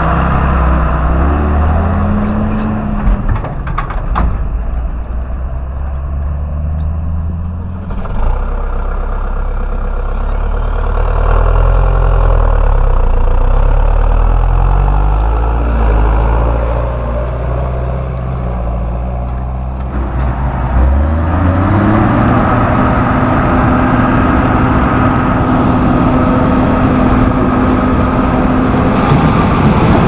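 Large John Deere farm tractor diesel engines running and revving, one after another. About two-thirds of the way through, a machine spins up with a rising whine into a steady high hum over the engine noise.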